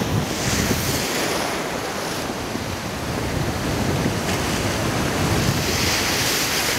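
Ocean surf washing onto a beach, swelling near the start and again near the end, with wind buffeting the microphone.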